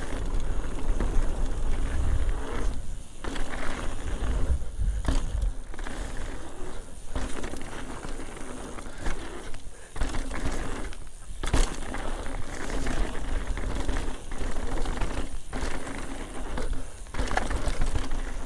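Mountain bike riding fast down a dirt trail: tyres rolling over dirt with the bike rattling and knocking over bumps, and a low wind rumble. The sharpest knock comes about eleven and a half seconds in.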